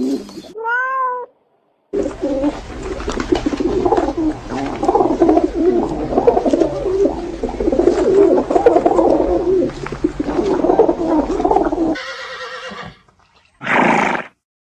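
Animal calls: one short call that rises and falls in pitch, then about ten seconds of many overlapping calls, and near the end a short noisy stretch and one brief burst.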